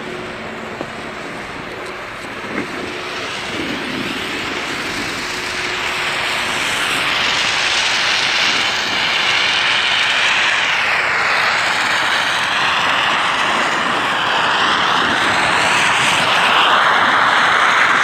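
Steady rushing hiss of snowmaking guns blowing snow, growing louder through the first half and then staying loud, with the scrape of sliding over packed snow underneath.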